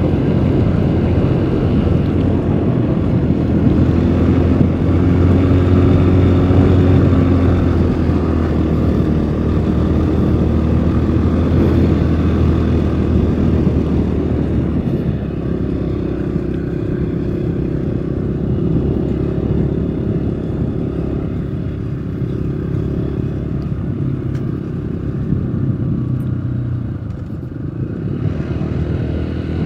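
Road vehicle engine running steadily while driving, under constant wind and tyre noise. The engine's tone changes about halfway through.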